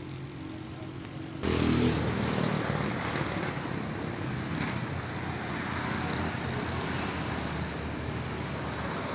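Road traffic noise with motor vehicle engines running past. It jumps suddenly louder about a second and a half in and stays loud and steady.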